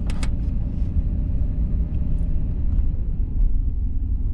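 A vehicle driving slowly: a steady low rumble of engine and road noise, with two sharp clicks right at the start.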